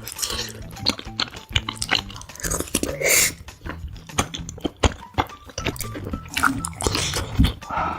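Background music with close-miked eating sounds: chewing and short wet mouth clicks.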